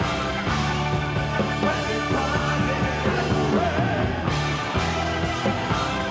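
Hard rock band playing live: electric guitars and drums over sustained low bass notes.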